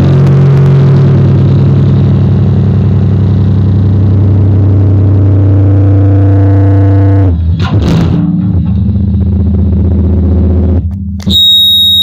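Electric bass played through a bass overdrive pedal: long, heavily distorted low notes held for several seconds each, with a brief scrape between them about 8 seconds in. Near the end a steady high-pitched whine sets in.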